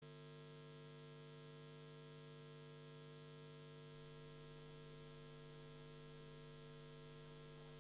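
Near silence with a faint, steady electrical hum: a low buzzing tone and a few higher tones above it, unchanging throughout, over a light hiss.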